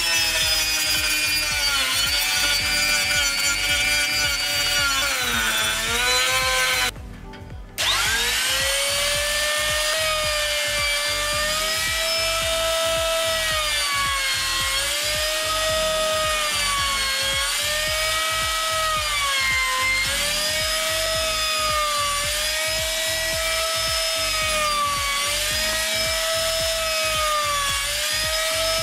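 A high-speed rotary tool grinding out the inside of a wooden frame, its whine sagging in pitch under load. After a short break about seven seconds in, a trim router cuts the same wood; its higher whine dips and recovers every couple of seconds as it bites.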